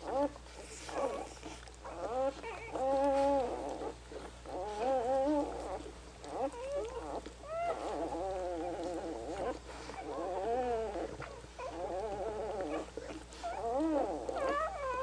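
Newborn German Shorthaired Pointer puppies crying, a string of high, squeaky whines with wavering pitch, one after another almost without pause.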